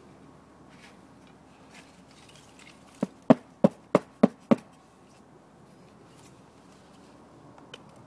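Six quick knocks of beehive parts being handled, about three a second, in a burst lasting about a second and a half.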